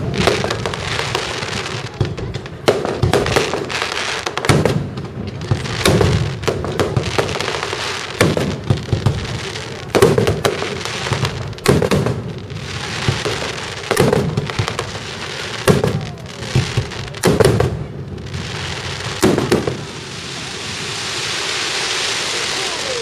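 Aerial firework shells bursting one after another, a sharp bang about every one and a half to two seconds, with crackling between. Near the end the bangs stop and a steady crackling hiss swells.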